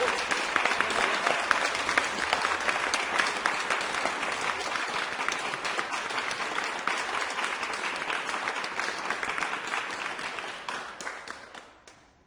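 A crowd applauding: dense, steady clapping that fades out over the last couple of seconds.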